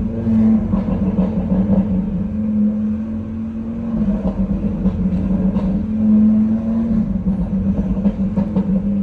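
Five-cylinder car engine through a Milltek exhaust, running at fairly steady revs with a deep, even note whose pitch rises and falls slightly a few times. Scattered exhaust crackles and pops break in, mostly in the second half.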